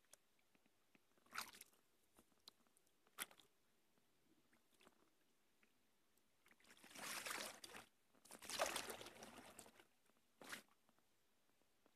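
Kayak on a quiet river: a few light knocks or drips, then two longer splashing strokes of a paddle through the water about six and a half and eight seconds in.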